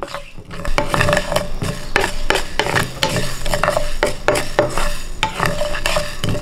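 Wooden spatula stirring mustard and fenugreek seeds as they dry-roast in a nonstick pan, the seeds scraping and rattling with many short sharp clicks.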